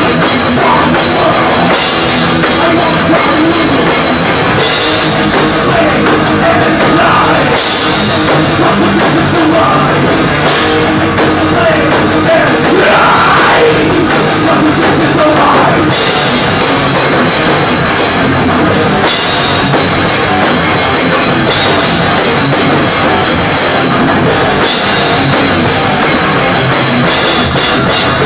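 Thrash metal band playing live, loud and without a break, with the drum kit prominent in the mix.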